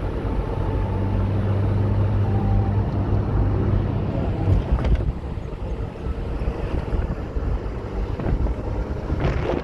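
A motor vehicle's engine running as a loud low rumble, with a steady hum that fades out about four seconds in.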